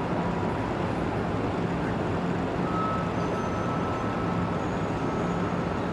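Steady urban traffic noise, a low even hum, with a faint thin high tone held from about halfway through.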